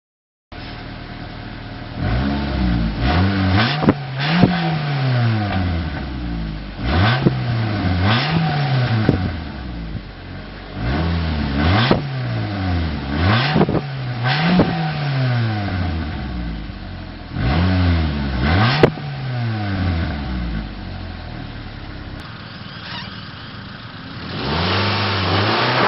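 Stock Mitsubishi Lancer engine and exhaust idling and being revved in repeated quick blips, each rising and falling in pitch, in groups of two to four, with a sharp click at the top of a few revs. Near the end a steady rushing noise comes in over the idle.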